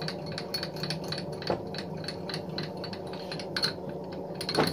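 Jet JMD-2S mill table being traversed by hand with its handwheel: a run of small irregular clicks and light rattling from the handwheel and feed screw over a steady low hum, with a brief louder sound near the end.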